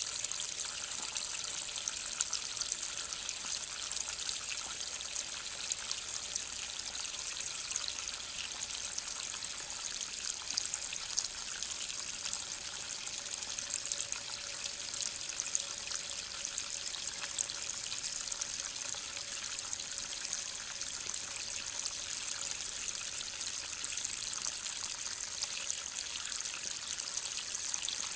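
Toilet tank refilling under 20 psi: the Fluidmaster fill valve runs with a steady hiss while its refill tube trickles water into a nearly full plastic gallon jug.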